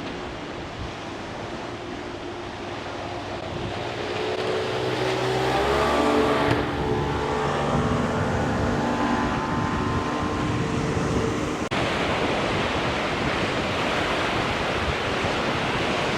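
Motorboat engine running as a boat passes through the inlet. It grows louder over the first few seconds and drops in pitch as it goes by. It then cuts off suddenly, leaving wind and surf noise.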